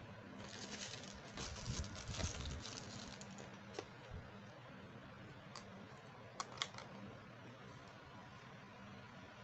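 Small plastic clicks and rustling from toy makeup-set pieces and packaging being handled: a busy run of light taps and rustles early on, then a few single sharp clicks.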